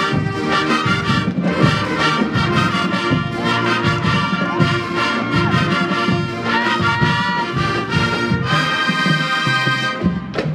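Marching band playing a brisk brass tune over drums, with a long held chord near the end.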